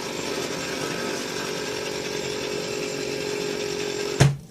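Several fidget spinners spinning at once, a steady whirring hum from their bearings; it stops suddenly with a knock near the end.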